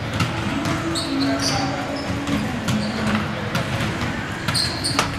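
A standing backflip on a rubberized indoor track: shoe soles squeak, and the landing thumps about five seconds in. Faint background music and scattered knocks run throughout.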